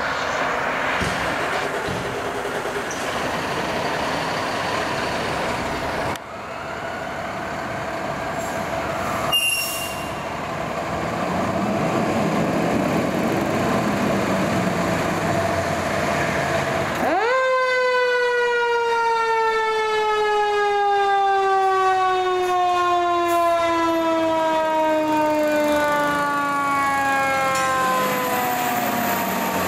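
Fire engine's mechanical Federal Q siren spinning up sharply a little over halfway in, then winding slowly down in pitch. Before it there is engine and traffic noise.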